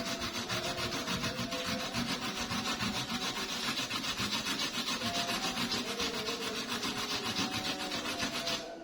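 Kencur (aromatic ginger) root being rubbed on a hand grater: a steady rasping of quick, even back-and-forth strokes, several a second, that stops just before the end.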